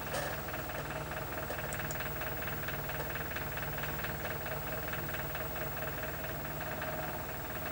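Video cassette recorder's tape transport running, a steady whirr with a fast, even fine ticking over a low hum.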